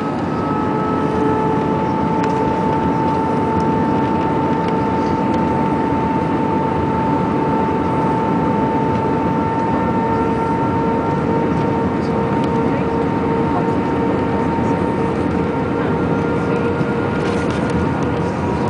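Airbus A319 on final approach: steady jet engine and airflow noise heard from the cabin, with a constant engine whine of a few tones that creep slightly higher toward the end.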